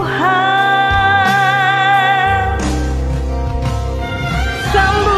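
Indonesian pop ballad music from a karaoke backing track. A lead melody scoops up into a long held note with vibrato over the band, the bass and band carry on alone for a couple of seconds, and the lead comes back in near the end.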